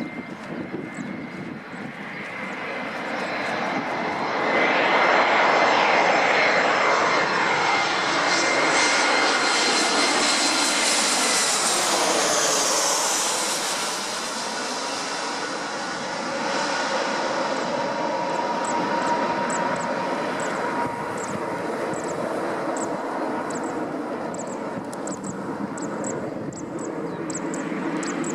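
Airbus A340's four jet engines passing low overhead on landing approach. The sound swells to its loudest about five to twelve seconds in, with tones sweeping in pitch as it passes, then settles to a steady rumble as it goes away. A faint regular high ticking is heard in the last ten seconds.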